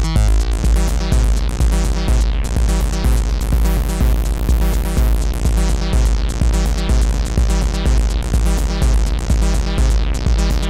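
Sound Object #5 synthesizer playing a quick, repeating techno bassline, its filter turned by hand so the tone opens brighter in the middle and closes down darker near the end.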